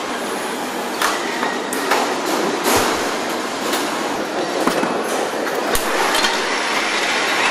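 Steady mechanical din of a car assembly line, with scattered metallic clanks and clicks about every second.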